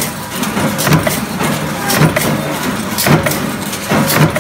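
Hinge stamping press running, its die punching cabinet hinge parts from steel strip: a steady machine noise with a sharp stroke about once a second, four in all.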